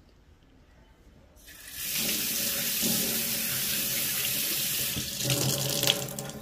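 Kitchen tap running into a stainless steel sink, the water splashing over gloved hands as they rinse food. The water comes on about a second and a half in and is turned down near the end.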